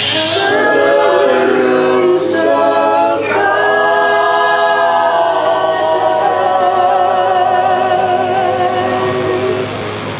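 A group of voices singing a cappella in harmony, holding long chords that change twice early on and fade down near the end.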